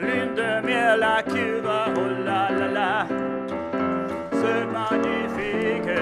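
Live classical-style music: a tenor voice singing a melody with wide vibrato over piano accompaniment.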